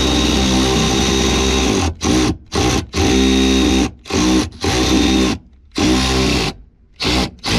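Milwaukee cordless driver spinning a bolt in through a socket extension: a steady motor whir for about two seconds, then a string of short bursts with brief pauses as the bolt is run down and tightened.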